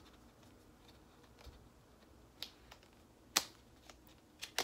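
Fingers and fingernails working at a small cardboard cosmetics box to open it: a few sharp clicks and taps in the second half, the loudest about three seconds in.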